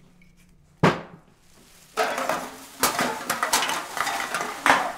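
Empty glass bottles and drink cans clinking and clattering as they are cleared off a table into a plastic rubbish bag. A single sharp knock comes about a second in; from about two seconds in the clattering is continuous, with several louder strikes.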